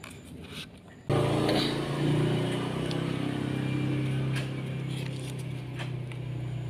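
Generator (genset) engine sound cutting in abruptly about a second in and running on as a steady drone, easing slightly about four seconds in.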